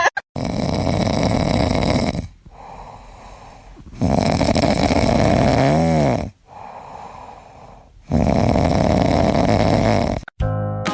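Loud, heavy snoring: three long snores about four seconds apart, with quieter breathing between them. A short wavering whistle closes the second snore. Music starts up near the end.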